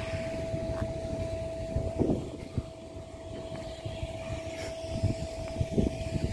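Charter train rolling slowly into a station, a steady high squeal, most likely from the brakes, held over a low rumble with scattered knocks.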